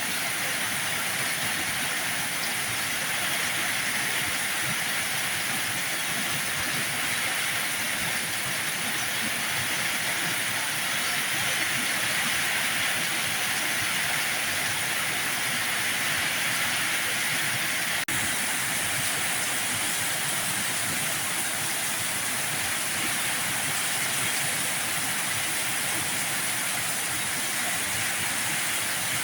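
Heavy rain falling steadily, an even hiss with no let-up, broken only by a momentary dropout about two-thirds of the way through.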